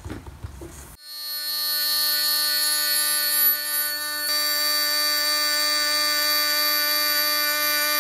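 CNC milling machine cutting slots in an aluminium plate with an end mill: a steady, high-pitched machining whine made of several fixed tones. It starts about a second in and shifts slightly about halfway through. Before it come a few faint handling clicks.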